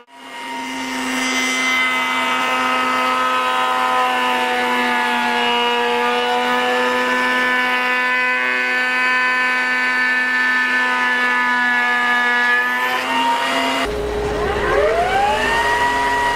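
Electric power tool motor running at speed with a steady high whine that sags slightly and recovers. Near the end it starts up again, its whine rising quickly in pitch and levelling off as the motor reaches full speed.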